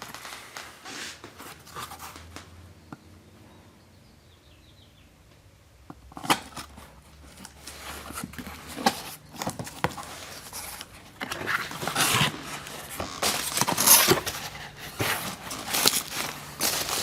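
Irregular clicks, knocks and rustling, as of objects and packaging being handled, starting about six seconds in and growing busier near the end.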